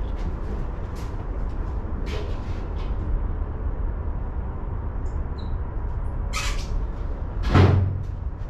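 Hand tools being handled during a wrench change: a few light clicks and a heavier clunk near the end, over a steady low rumble.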